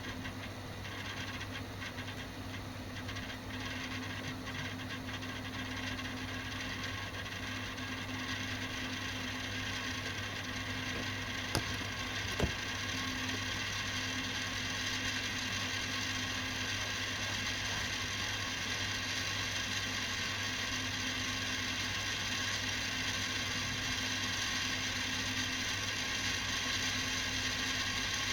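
Victor BR-6400 VHS video deck winding a tape at high speed: a steady mechanical whir that slowly grows louder, with two sharp clicks about halfway through.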